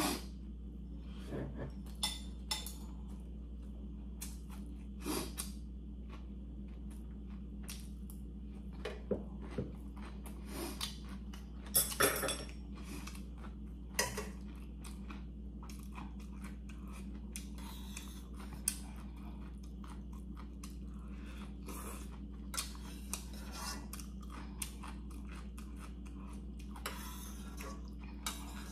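A person eating ramen and gimbap: chewing, with scattered short clinks and knocks of a metal spoon and chopsticks against a stainless steel pot and plate, the loudest cluster a little before halfway. A steady low hum runs underneath.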